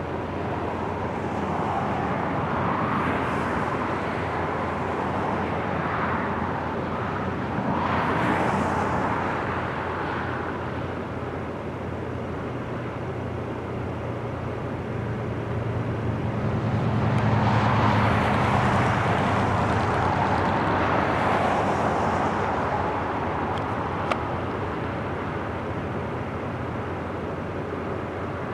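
Road traffic passing close by in swells, over the drone of a Lockheed C-130 Hercules's four turboprop engines at take-off power as it rolls down the runway and lifts off. The loudest swell comes a little past halfway.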